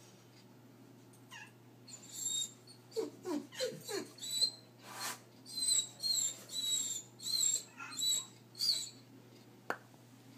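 Doberman whining at a kitten: a string of short, high-pitched squealing whimpers that bend up and down, about one a second, with a few lower cries falling in pitch early on and a brief breathy burst in the middle.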